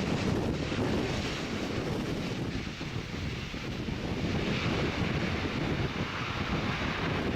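Jet engine noise from an Avianca Cargo Airbus A330-200F freighter, a steady rush that takes on more hiss from about halfway in, mixed with wind buffeting the microphone.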